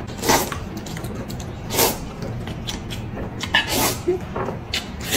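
Wide noodles in broth being slurped from a bowl: three long, noisy slurps about two seconds apart, with light clicks in between.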